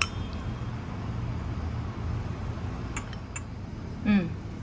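Wooden chopsticks and a ceramic bowl clinking: one sharp clink at the start, then two light clicks about three seconds in, over a steady low hum. A short vocal sound just after four seconds.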